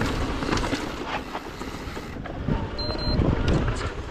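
Wind rushing over the camera microphone as a mountain bike rolls over a rocky dirt trail, with frequent knocks and rattles from the bike and tyres over rough ground.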